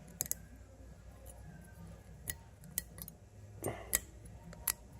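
Light metallic clicks and clinks of thin sheet-metal brake pad clips being worked and pressed into a disc brake caliper bracket. About seven short, sharp clicks come at irregular intervals, a cluster of them near the end.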